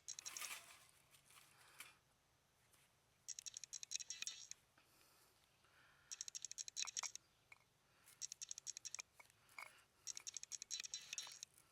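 Striker scraping a ferrocerium rod, four short bursts of rapid scraping strokes throwing sparks onto tinder.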